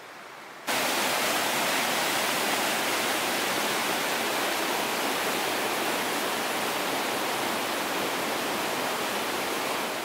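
Water running in a shallow stream, then, about a second in, a sudden change to the much louder, steady rush of white-water rapids.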